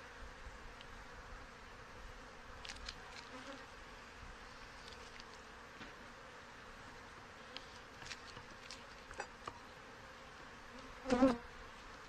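Honey bees humming steadily from an open hive, with a few faint clicks. Near the end a single bee flies close by with a louder, wavering buzz.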